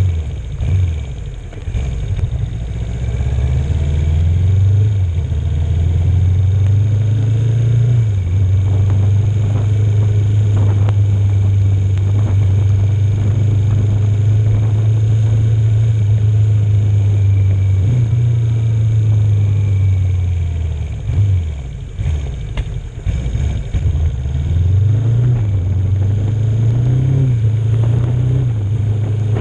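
1981 Yamaha XS400 parallel-twin motorcycle engine under way: it revs up in the first few seconds, holds a steady cruising note, drops off and wavers past halfway as the bike slows, then picks up again near the end.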